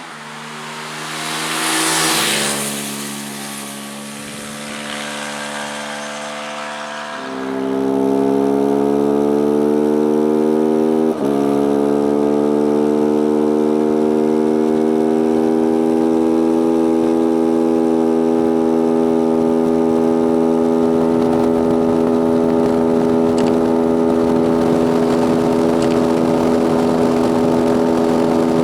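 Beta RR 125 supermoto's single-cylinder engine under hard acceleration. After a rush of noise about two seconds in, the revs climb steadily from about seven seconds in, dip briefly for a gear change near eleven seconds, then climb slowly and hold at steady high revs, running flat out towards its top speed.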